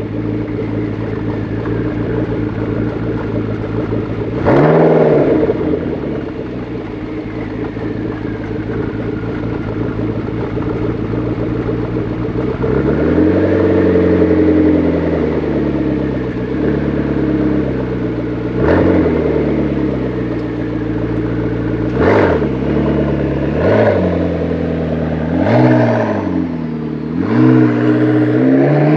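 McLaren 12C's twin-turbo V8 with sports exhaust idling steadily, revved sharply once about four seconds in and then five more times in the second half, each rev rising fast and dropping straight back to idle. Near the end the car pulls away.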